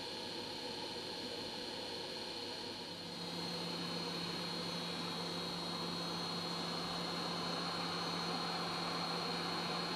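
Steady hiss and whir of a hot air rework station's blower, getting a little louder about three seconds in, when a steady low hum comes in.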